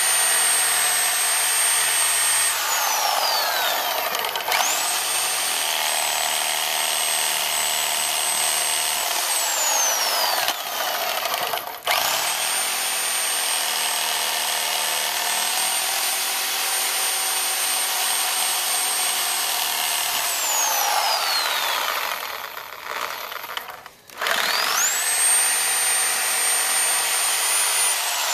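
Corded reciprocating saw run in bursts of several seconds with its blade plunged into the soil, cutting the roots around the base of a shrub stump. Each run starts with the motor whine rising and ends with it winding down, several times over.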